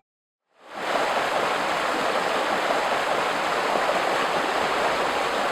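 Steady rushing of water, fading in after a short silence and holding level without surges.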